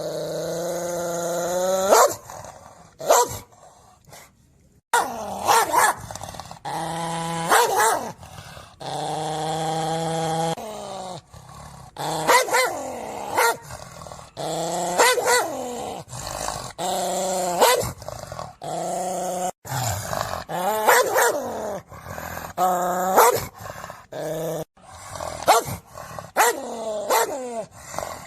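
A dog barking and growling in a string of short pitched calls, some drawn out, with abrupt cuts between them.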